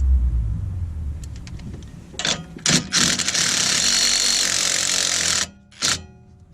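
A power tool on the sway bar end link nut is triggered in two short bursts, then runs steadily for about two and a half seconds and stops, with one more short burst near the end.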